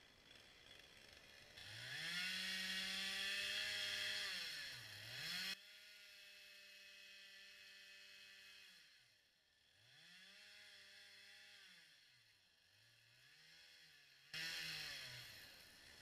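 Stihl two-stroke chainsaw revving: it climbs to full speed about a second and a half in, holds there, and drops back, then blips up and down several times. It is quieter through the middle and louder again near the end.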